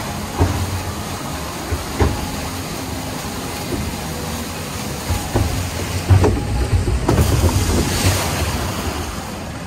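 Ride boat moving along a water channel with water rushing and churning around it, and a few knocks as the boat bumps along the channel. Near the end, a burst of water splashing over the boat.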